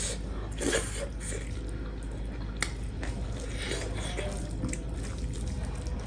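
Hands mixing rice with meat and curry on metal plates: soft wet squishing with scattered small clicks of fingers against the plates.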